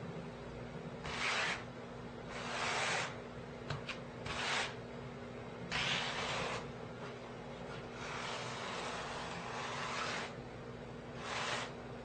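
A trowel scraping mortar across cement backer board in about six separate strokes, one of them a longer drawn-out scrape about eight seconds in. A couple of short light clicks come about four seconds in, over a steady low hum.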